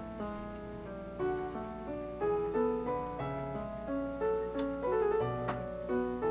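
Background piano music, a melody of single notes with a light accompaniment.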